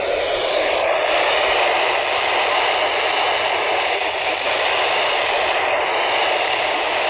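Radio receiver hissing with steady static, no station coming through; the static is taken for the distant signal fading out as tropospheric ducting ends.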